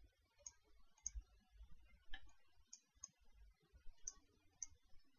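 Faint computer mouse clicks, about ten scattered short ticks over a near-silent background, one about two seconds in a little louder than the rest.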